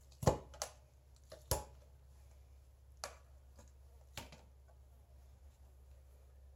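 Scattered sharp metal clicks and taps of a hand tool working at the differential cover of a Ford 8.8 rear axle, loosening it to drain the gear oil, over a steady low hum.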